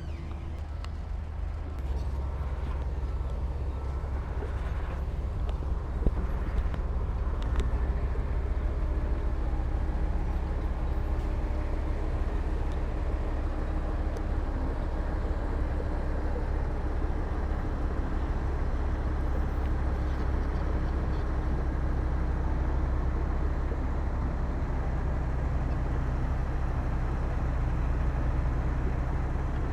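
Heavy diesel earthmoving machinery running with a steady low drone that grows louder about two seconds in. A few short knocks are heard a few seconds later.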